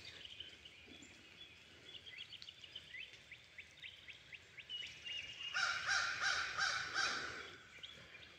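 Woodland birds chirping faintly, with a louder bird call repeated rapidly for about a second and a half past the middle.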